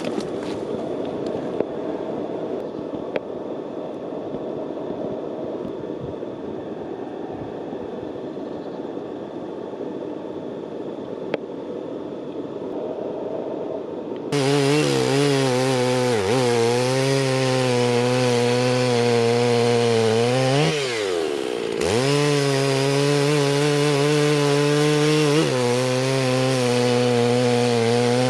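Husqvarna 55 two-stroke chainsaw. It is quiet for about the first half, then jumps to full throttle with a loud, steady engine whine about halfway in. It sags briefly in pitch and picks up again around two-thirds in, as when it bogs under load while cutting wood.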